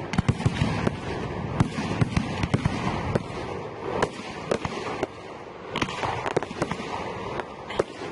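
Fireworks display: a dense, rapid run of sharp bangs and reports over continuous crackling. It thins out briefly about five seconds in, then more sharp reports follow.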